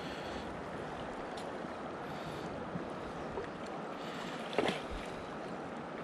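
Steady rush of river water moving around a drifting boat, with one brief sharp sound about four and a half seconds in.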